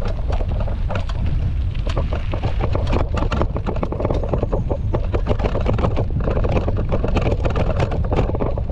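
Quad bike riding over a stony dirt road: a steady low rumble of engine and wind on the microphone, with many quick clicks and rattles from stones under the tyres.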